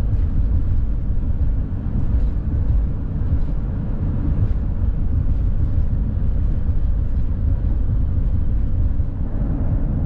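Steady low rumble of a vehicle driving up a mountain highway grade, engine, tyre and wind noise together, with the engine working under the load of the climb.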